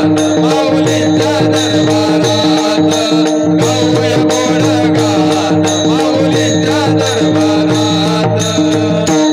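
Devotional bhajan music: a pakhawaj drum and small brass hand cymbals (taal) play a fast, even rhythm over a steady drone. The music stops abruptly near the end.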